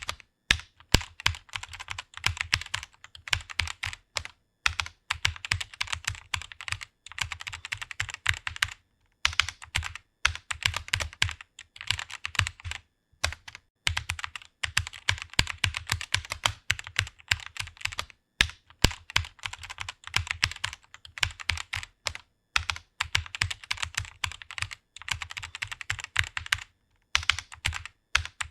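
Fast typing on a computer keyboard: rapid key clicks in runs, broken now and then by short pauses.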